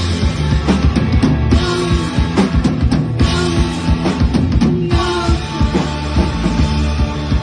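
Loud rock music in a haunted art-punk style, with a drum kit hitting a steady beat over a thick, constant low bass.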